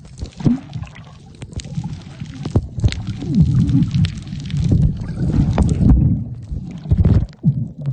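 Muffled underwater sound picked up by a submerged phone: an uneven low rumble of moving water and bubbling, with scattered sharp clicks and knocks.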